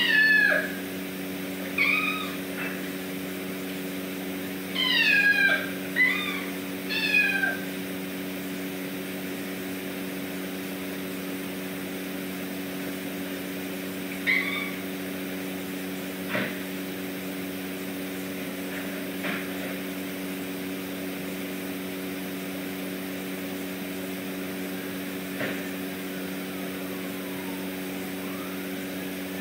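Kitten meowing: short high meows that fall in pitch, about six in the first eight seconds and one more about fourteen seconds in. A steady low hum lies underneath, with a few faint clicks later on.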